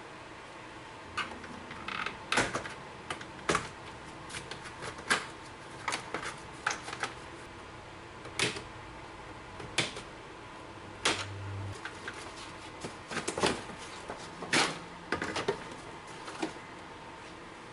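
Irregular clicks and knocks of hand tools and metal parts being handled, with a few sharper knocks among them.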